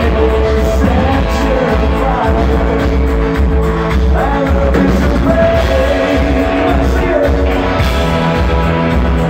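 Live rock band playing loud: a male lead vocal over strummed acoustic guitar, electric guitar, bass and a steady drum beat.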